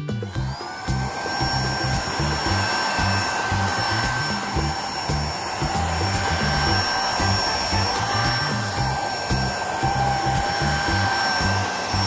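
Dibea M500 Pro cordless stick vacuum with its bedding brush head switched on: the motor whine rises to a steady high pitch within the first second, then runs evenly with a rushing airflow hiss until it cuts off at the very end. Background music with a beat plays underneath.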